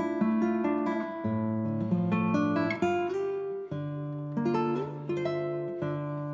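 Background music on plucked acoustic guitar: a run of picked notes over lower bass notes that change every second or two.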